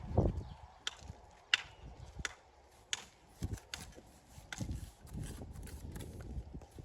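Building stones knocking and clacking together as they are handled and set in a wall: a run of sharp, irregular clacks with a few duller thumps between them.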